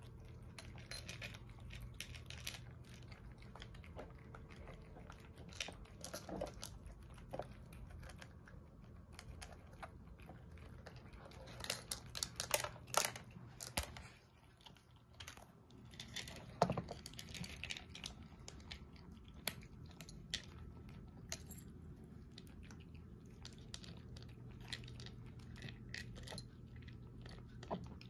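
Cats crunching and chewing dry kibble from bowls, with irregular crisp crunches that come thickest around the middle.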